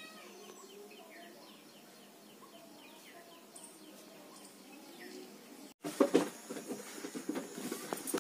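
Small birds chirping, short repeated calls over a faint outdoor background. After about six seconds this cuts to louder, dense rustling and crackling as fresh pumpkin leaves and stems are handled and stripped.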